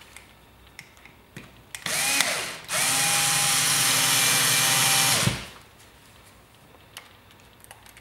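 Small cordless drill-driver whirring: a short spurt about two seconds in, then a steady run of about two and a half seconds as it drives a screw through a paper template into drywall, stopping abruptly. Faint handling clicks come before and after.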